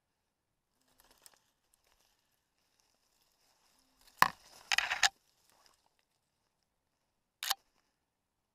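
Brush, twigs and dry leaves rustling and scraping close to the microphone in a few short bursts as someone pushes through undergrowth. The loudest part, about four seconds in, is a sharp crack followed by nearly a second of dense rustling.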